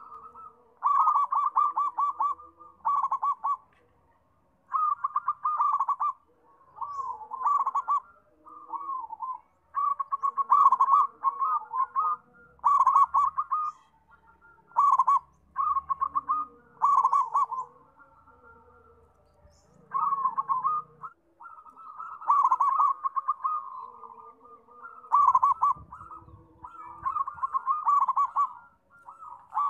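Zebra dove (perkutut) cooing: repeated phrases of quick, rolling notes, each lasting a second or two, with short pauses between them.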